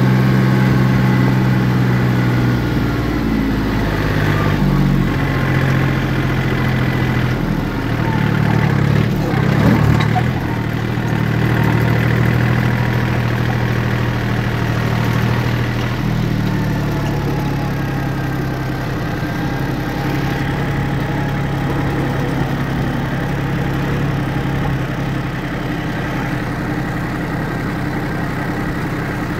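John Deere 870 compact tractor's three-cylinder diesel engine running steadily under way. Its note shifts a few times, with a brief louder rumble about a third of the way through, and the engine speed eases down slightly a little past halfway.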